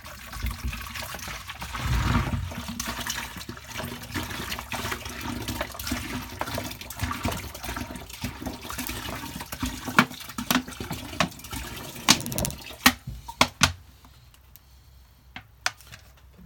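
Water being poured into a chicken drinker to test a fresh resin repair for leaks. The pouring stops at about 13 seconds, with a few sharp knocks near the end.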